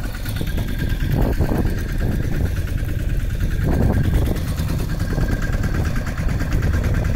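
Small boat outboard motor idling steadily.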